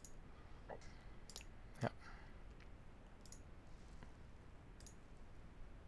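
Computer mouse clicking: a handful of faint, sharp clicks spread over several seconds, the loudest just under two seconds in.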